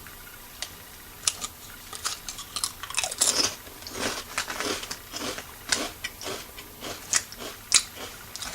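Close-up crunching of a potato chip being bitten and chewed: a first sharp crunch about a second in, then a run of quick crisp crunches that thins out near the end.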